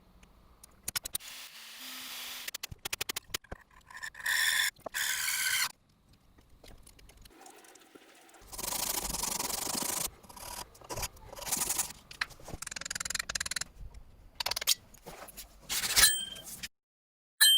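Hand-tool work on an antique screwdriver in short separate bouts of scraping and rubbing strokes, with scattered clicks and knocks between them. A short metallic ring comes right at the end.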